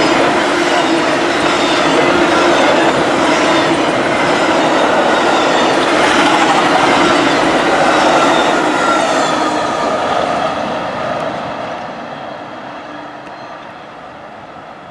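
Amtrak Auto Train autorack cars rolling past close by, steel wheels rumbling and clattering on the rails with a thin wheel squeal. The last car goes by about nine seconds in, and the sound then fades steadily as the train moves away.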